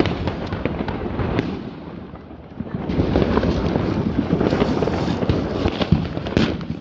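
Fireworks going off at street level: a dense crackle of many overlapping bangs, with a few sharper single cracks. It dips briefly about two seconds in, then grows louder again.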